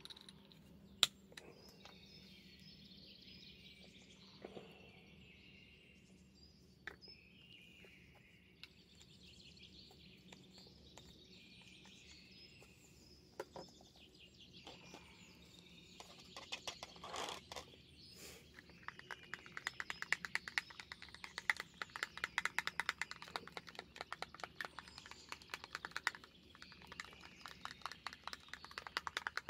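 Faint songbirds chirping, with a sharp click about a second in and long runs of rapid ticking through the second half.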